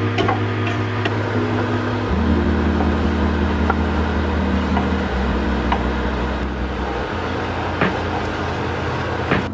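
Background music with soft, sustained chords and a low bass line that change every two to three seconds. A few light clicks sound over it.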